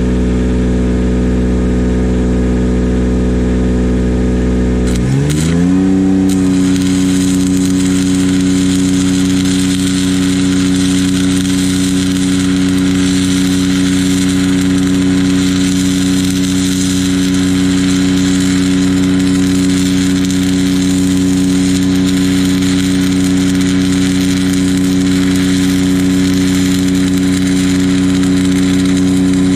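Engine-driven welding machine idling, then revving up to weld speed about five seconds in as the arc is struck. The engine then runs steadily under the constant crackle and sizzle of an eighth-inch stick-electrode arc laying a long bead to fill a wide gap.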